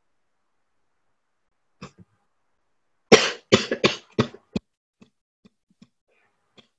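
A woman coughing into her hand: a short sound about two seconds in, then a run of about five coughs close together, followed by a few faint clicks.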